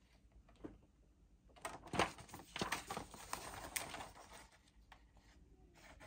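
Pages of a paper instruction booklet rustling and crackling as they are turned by hand, a dense burst lasting about two and a half seconds from a second and a half in, with a few faint handling clicks around it.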